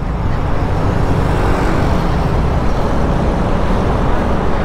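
Yamaha Aerox scooter on its stock exhaust, its single-cylinder engine running steadily while being ridden in traffic, mixed with wind rush over the helmet camera's microphone.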